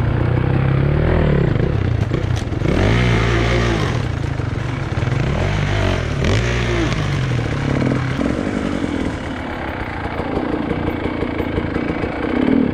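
Enduro motorcycle engine heard close up from the riding bike, revving up and down in repeated short throttle bursts over rough trail, then running at a steadier pitch for the last few seconds.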